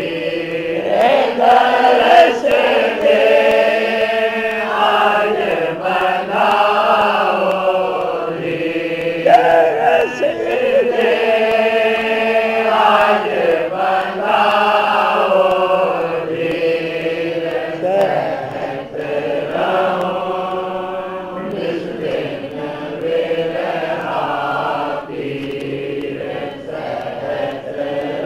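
Devotional Radha Soami shabad sung in a slow chant, with long held notes.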